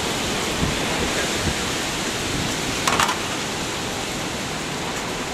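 Hurricane storm noise: a steady, even rush with no pitch to it, with a brief knock about three seconds in.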